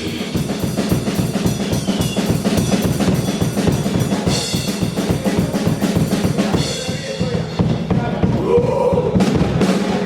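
Deathgrind band playing live, the drum kit leading with very fast, even kick and snare strikes and repeated cymbal crashes.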